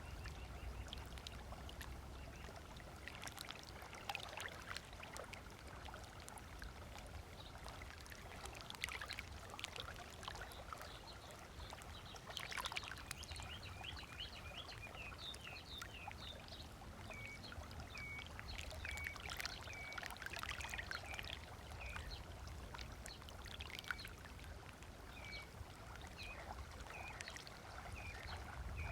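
Small waves lapping and splashing on a sandy lake shore in irregular strokes. From about halfway through, a bird repeats short, high chirps about once a second.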